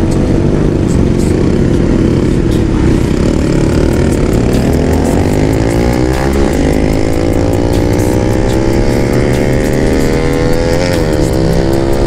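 Benelli TNT 300 parallel-twin engine through an aftermarket Akrapovic exhaust, pulling away and accelerating hard. The engine note climbs in pitch through the gears, dropping sharply at an upshift about halfway through and again near the end.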